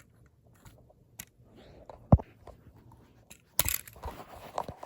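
Scattered clicks and light knocks of small objects being handled and moved, with a sharp knock about two seconds in and a louder scraping rustle a little past halfway.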